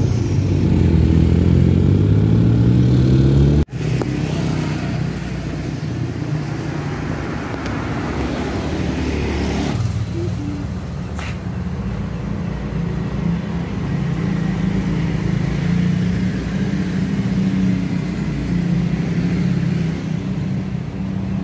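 A vehicle engine accelerating, its pitch rising, from on board. About four seconds in it cuts off suddenly to steady street traffic noise with motorbikes going by.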